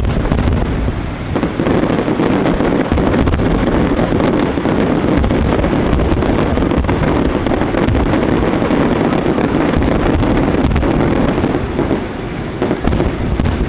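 Dense fireworks barrage: many shells bursting at once, blending into a continuous heavy rumble with crackling on top, loud enough to overload the microphone.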